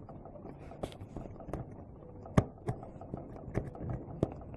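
Small irregular clicks and taps of a drill's switch parts being handled as a spring is fitted into the switch housing, the sharpest click a little over two seconds in.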